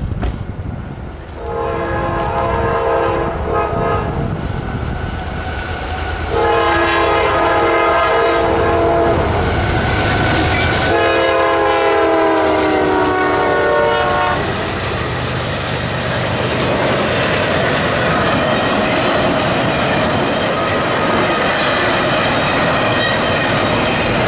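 A CSX freight train's diesel locomotive horn sounds three long blasts, the third falling in pitch as the locomotives pass. The locomotives and double-stack container cars then roll by with steady wheel and rail noise.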